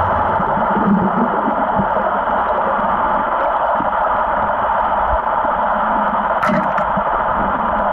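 Steady underwater hiss as picked up by a camera in its waterproof housing, with a few faint clicks about six and a half seconds in.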